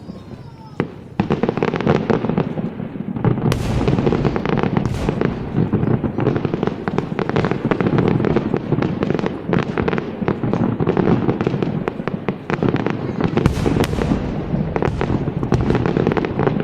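Fireworks display: after a quieter first second, a dense, continuous run of rapid crackling and bangs, with deeper booms about three and a half seconds in and again near the end.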